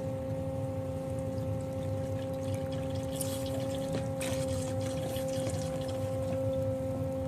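Small bathtub bubble-jet (jacuzzi) motor humming steadily with churning, bubbling water, and a few light splashes about three to four seconds in.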